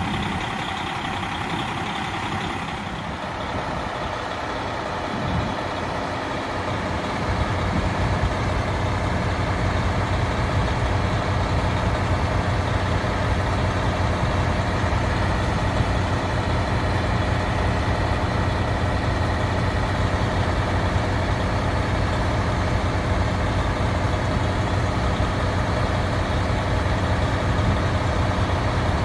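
KiHa 183 series diesel railcar idling at a standstill: a steady engine drone, with what seems to be its onboard generator running as well. About seven seconds in the drone grows louder and deeper and then holds steady.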